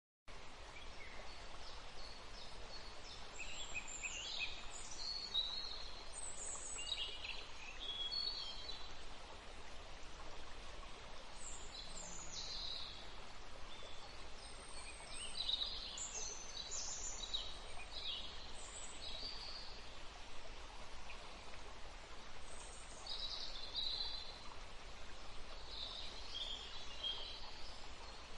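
Birds chirping and trilling in short, high, scattered phrases every few seconds over a steady outdoor hiss.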